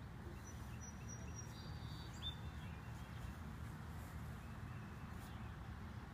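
A few short, thin, high-pitched bird chirps between about half a second and two and a half seconds in, the last one the loudest, over a steady low outdoor background rumble.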